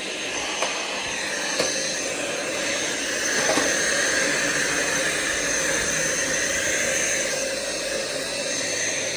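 Dyson V7 Absolute cordless stick vacuum running steadily, a rush of air with a thin high whine, with a few faint ticks.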